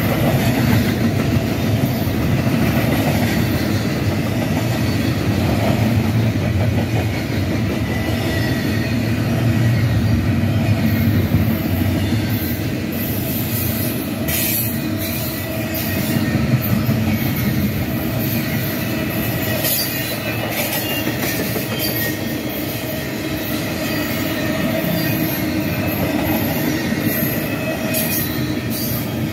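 Double-stack intermodal freight train's loaded well cars rolling past, a steady rumble of steel wheels on rail. Thin, steady wheel squeal rides over it, with a few sharp clanks from about halfway through.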